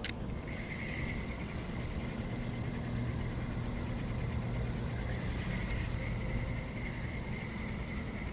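A small motor running steadily: a low hum with a thin high whine over it. There is a short sharp click right at the start.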